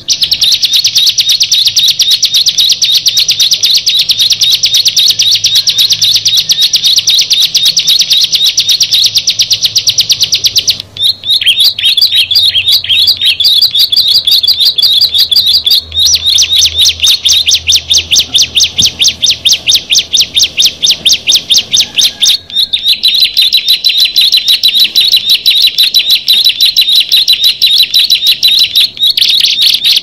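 Ciblek (prinia) songbirds calling in a loud, rapid run of high, sharp chirps that goes on without a break. The call changes its pattern a few times, about 11, 16 and 22 seconds in.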